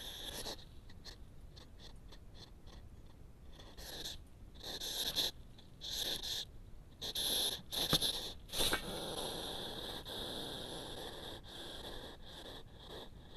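European hedgehog huffing and snorting: a series of short, breathy bursts in quick succession from about four to nine seconds in, followed by a steadier hiss.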